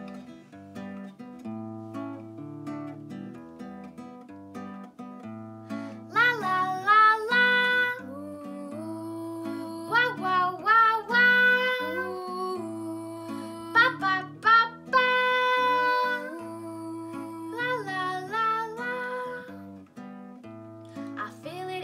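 Nylon-string guitar playing a chord accompaniment, joined about six seconds in by a girl's voice singing the melody in short phrases.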